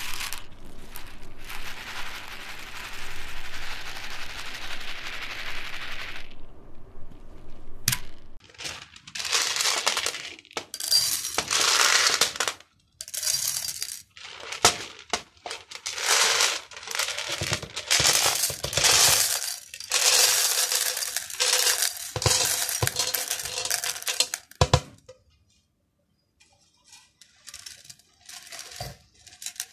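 Smarties, small sugar-shelled chocolate candies, poured into the metal hopper of a hand-crank meat grinder, clattering and rattling against the metal in a series of pours lasting a second or so each. There is a steady rustle near the start, and the pours thin out near the end.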